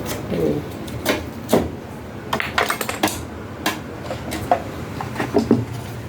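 Sharp metallic clinks and knocks of hand tools and small metal parts being handled while an air conditioner is rewired, a dozen or so irregular strikes with a quick cluster about two to three seconds in, over a low steady hum.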